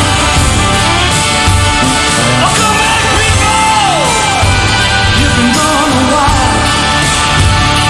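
Instrumental passage of a Celtic-flavoured rock song, with a steady drum beat and a lead melody that slides down in pitch about four seconds in.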